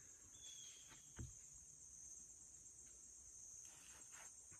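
Faint, steady high-pitched chorus of woodland insects, with a brief high whistled note near the start and a soft thump about a second in.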